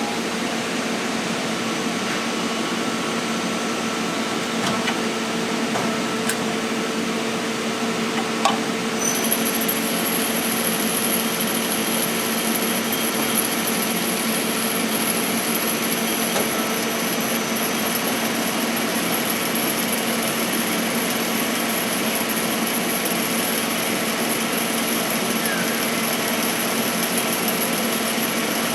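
Goodway GL25 CNC lathe running: a steady machine hum with a few light clicks, then a high-pitched whine that comes in suddenly about a third of the way through and holds steady.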